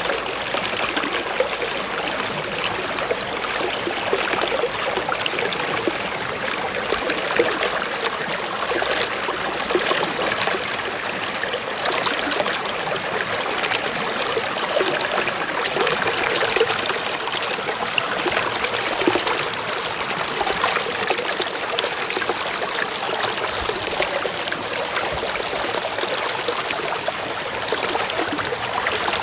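Running water flowing steadily without a break.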